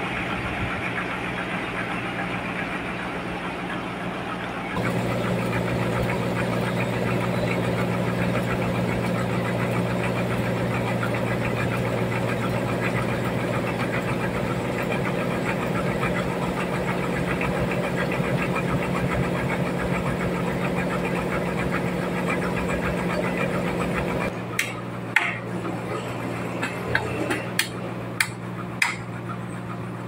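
Band sawmill running with a steady drone as it cuts a large trembesi slab, getting louder about five seconds in. Near the end the saw noise drops and a dozen or so sharp, irregular hammer taps on a log follow.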